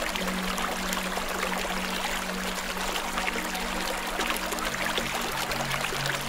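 Steady watery hiss sprinkled with many small crackling ticks, over low sustained tones that drop in pitch a little past four seconds in.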